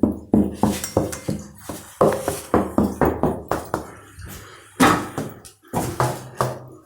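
Repeated knocking and tapping on ceramic wall tiles, about two to three knocks a second at an uneven pace, the loudest about five seconds in: a check for tiles that have come away from the wall.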